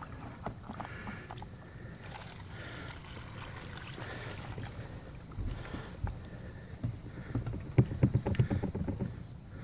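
Muddy water and slurry poured from a tub into a plastic gold pan, splashing and sloshing, heavier near the end. It is the mill's leftover material being tipped out to be panned.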